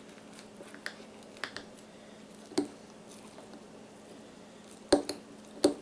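A metal utensil stirring thick sourdough starter in a glass jar, with soft squishing and scattered sharp clicks against the glass, the two loudest near the end.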